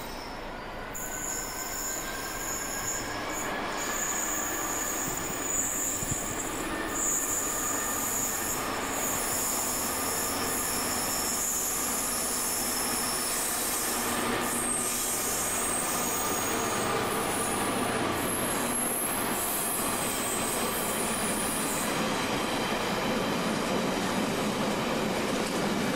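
Freightliner Class 66 diesel locomotive, with its EMD two-stroke V12 engine, hauling a container train past, growing steadily louder as it approaches and goes by. High-pitched wheel squeal comes and goes over the rumble of the wagons.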